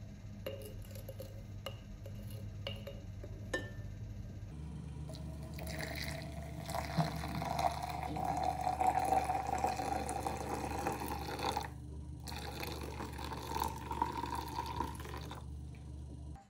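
A few light clicks, then water running for several seconds, briefly interrupted and starting again, before it stops near the end.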